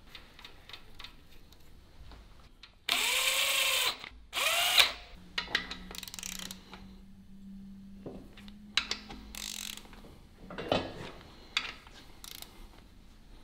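Electric ratchet run in two short bursts, its motor speeding up and slowing down each time, while a BMW N54 engine is assembled. A low steady hum follows for a few seconds, with scattered clicks of tools on metal.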